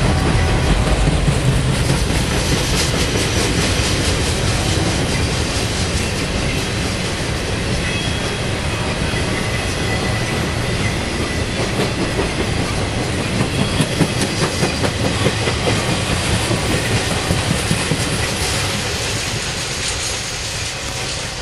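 Freight cars of a BNSF intermodal train, loaded with highway trailers, rolling past on steel rails: steady rolling noise with the clickety-clack of wheels over rail joints. The clacks stand out in a quick regular run about two-thirds of the way through, and the sound eases a little near the end as the rear of the train goes by.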